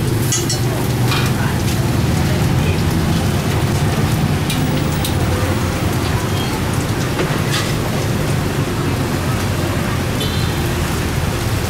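Cabbage and greens sizzling in a hot steel wok as they are stir-fried, a steady rushing noise, with a few clinks of a metal ladle and spatula against the wok.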